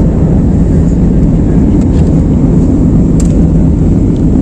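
Inside the cabin of an Airbus A320-family jet airliner climbing just after takeoff: the engines at climb power and the rushing air make a loud, steady low roar.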